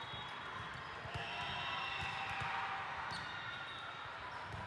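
Echoing sports-hall din of a volleyball tournament: scattered thuds of volleyballs being hit and bouncing on the courts, with a few high squeaky tones from about a second in and faint voices in the background.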